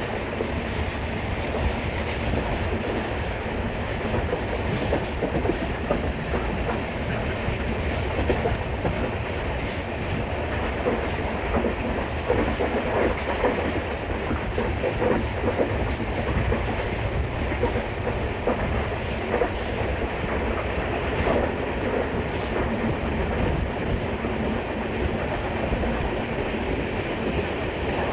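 Passenger train running steadily along the track, its coach wheels rumbling and clicking over the rails.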